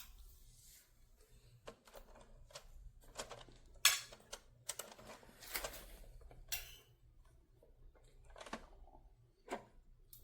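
Scattered light clicks, taps and clatter of small hard objects being handled, the sharpest about four seconds in, over a faint steady low hum.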